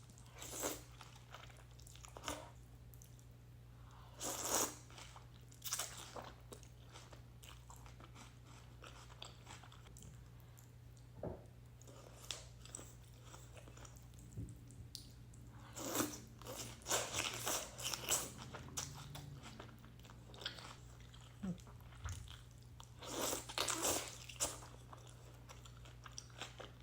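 Close-up eating sounds of a person eating beef vermicelli noodle soup: chewing and biting in irregular bursts a few seconds apart, with a steady low hum underneath.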